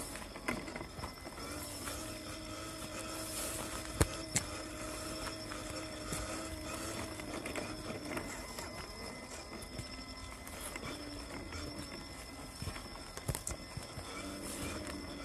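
WPL C54 RC crawler's small brushed 180 motor and stock gearbox whining as it drives, the pitch wavering with throttle and the whine fading after about eight seconds. Scattered clicks and knocks run through it, the sharpest about four seconds in.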